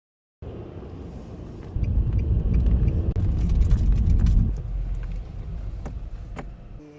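A low rumble that comes in just after the start, swells for a few seconds in the middle and then eases off, with a few faint clicks over it.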